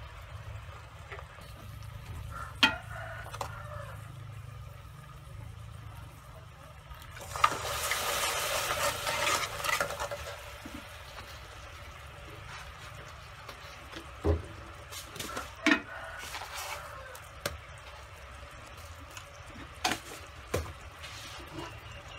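Caramelised palm-sugar syrup with star anise, garlic and galangal bubbling and sizzling in an aluminium pot, with a louder stretch of sizzling about seven seconds in that lasts a few seconds. A few sharp clinks of the metal ladle against the pot.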